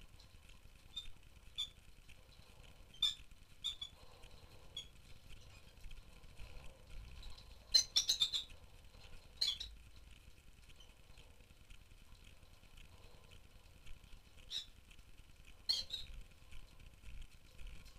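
Rosy-faced lovebirds giving short, sharp chirps and squawks now and then, with a quick burst of several calls about eight seconds in.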